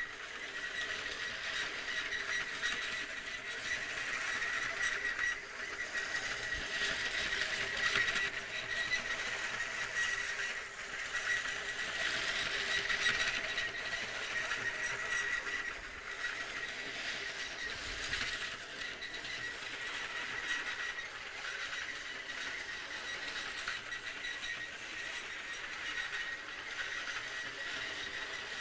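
Vintage LEGO 726 Western Train running laps on its blue plastic rails: the steady high whine of its small electric motor over the rattle of the wheels on the track.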